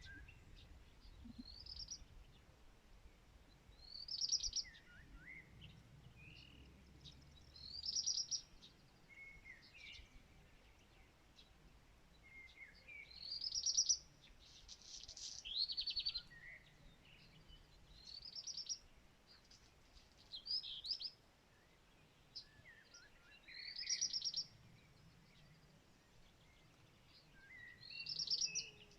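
A songbird singing short, high phrases with quick trills, repeated every few seconds.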